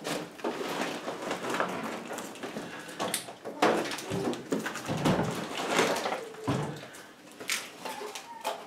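Handling noise as a plastic-wrapped over-the-range microwave oven is lifted by hand: the plastic film crinkles and rustles, with irregular knocks and bumps against the cabinet and mounting plate.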